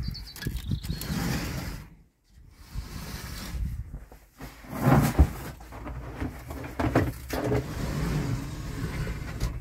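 Footsteps and rustling while moving into a small glass greenhouse, with a rumble on the microphone and scattered knocks and rattles. The loudest knocks, about halfway through, fit the greenhouse's sliding door and frame being handled. There is a brief break about two seconds in.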